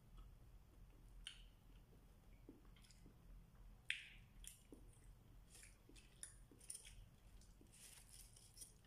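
Faint, scattered crinkling and rustling of aluminium foil and a plastic bag with soft chewing, as food is eaten by hand from the foil; the sharpest crinkle comes about four seconds in and a cluster of rustles near the end.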